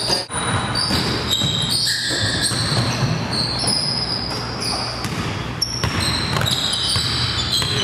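Basketball game on a gym court: sneakers squeak in short, high chirps on the floor and a basketball bounces, over a steady low hum.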